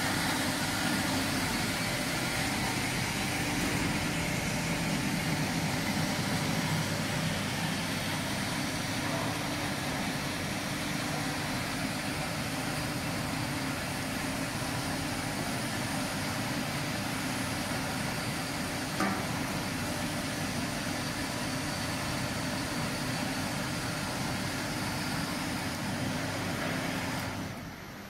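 Continuous plastic crate washing machine running: a steady low hum from its pumps and motors under a broad, even hiss. There is a single brief click about two-thirds of the way through, and the sound drops away suddenly just before the end.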